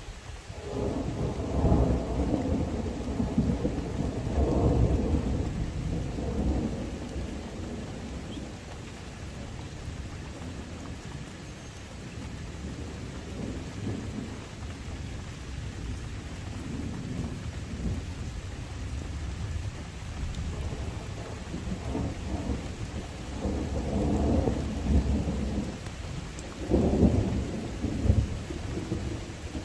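Thunder rumbling in long rolling waves over steady rain. A long roll in the first few seconds fades to quieter rumbling, then builds again near the end with a sharper clap.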